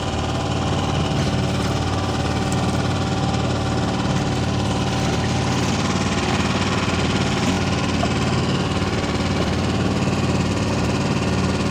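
An engine aboard a small fishing boat running steadily, with an even low hum.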